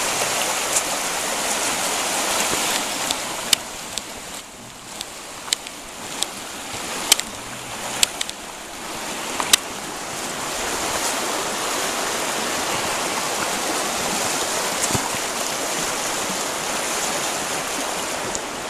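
Fast, shallow river rushing over a rocky bed, a steady rush of water. It dips somewhat in the middle, where a series of sharp clicks sounds between about 3 and 10 seconds in.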